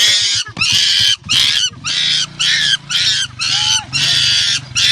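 A bird squawking over and over, loud harsh calls coming about twice a second.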